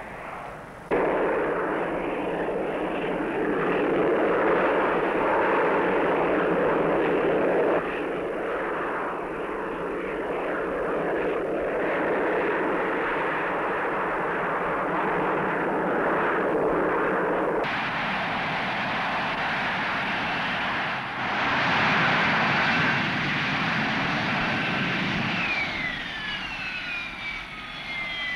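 Hawker Siddeley Harrier jet noise from its Rolls-Royce Pegasus engine: a loud, steady rush whose character jumps abruptly several times. Near the end a high whine glides down in pitch.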